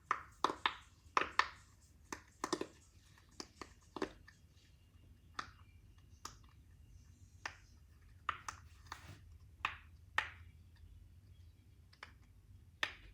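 A fidget toy being pressed and popped by hand, giving a run of sharp, irregular pops and clicks. They come thickest in the first few seconds and again about eight to ten seconds in.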